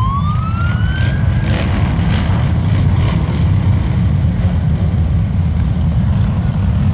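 Many Harley-Davidson V-twin motorcycle engines rumbling together. Near the start a siren sweeps up in pitch once and stops about a second and a half in.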